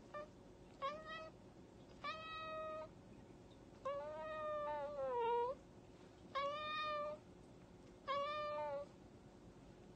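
A cat meowing five times: short calls of under a second, with a longer, wavering one in the middle that drops in pitch at its end.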